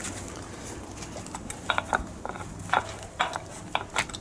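Light metallic clicks and taps, about half a dozen spread through the second half, as a small aluminium washer and fittings are handled and slid onto the threaded axle of an e-bike hub motor.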